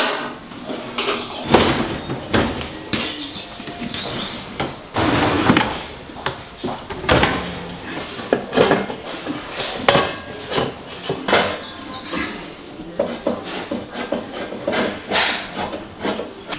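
Irregular knocks, clicks and scraping of metal oven parts and hand tools being handled during replacement of the oven's heating elements.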